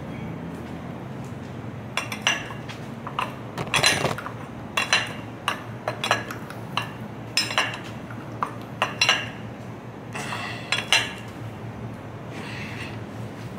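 Ratchet wrench clicking in short runs as a hydraulic hose fitting is tightened, with sharp metallic clinks about every half second from about two seconds in until near the end, over a steady low hum.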